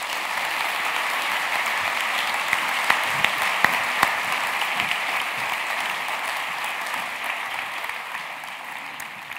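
Large audience applauding: dense, steady clapping with a few louder single claps close by, slowly dying down near the end.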